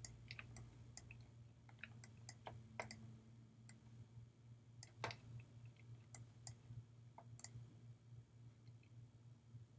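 Faint computer mouse clicks at irregular intervals over a steady low hum.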